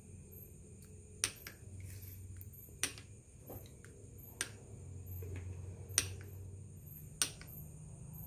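Soup spoon clinking against the side of a ceramic bowl five times, roughly every second and a half, as it stirs a milky liquid.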